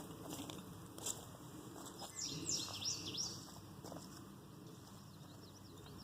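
A bird calling: a quick run of about four high, falling chirps a couple of seconds in, with fainter chirps near the end. A few light knocks can be heard underneath.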